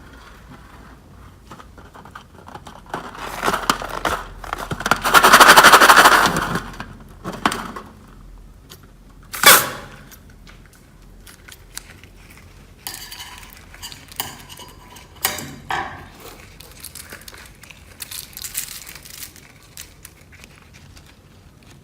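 Clear slime mixed with beads being handled and squished, giving wet crackling and clicking. A longer, louder crackly stretch comes about five seconds in, and one sharp pop near ten seconds, followed by scattered small clicks.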